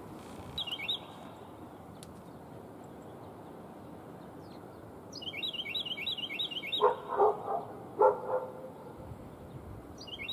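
Steady shore noise from surf and wind, with a small songbird's rapid twittering phrase repeated about every five seconds. A few short barks, the loudest sounds, come about seven and eight seconds in.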